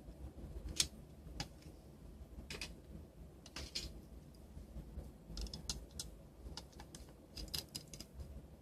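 Faint, irregular clicks and taps of small screws and the plastic and metal parts of a Palm Treo 755p being worked apart with a small screwdriver, with several quick clusters of clicks near the end.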